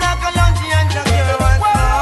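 A reggae song played loud over a sound system, with a deep, pulsing bassline and a sung vocal.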